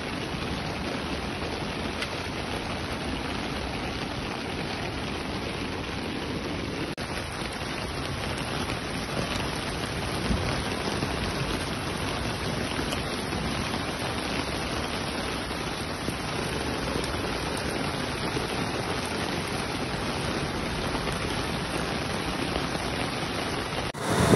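Heavy rain falling steadily onto flooded streets: an even, unbroken hiss of rain on water and pavement. In the last moment it cuts to a louder, lower noise.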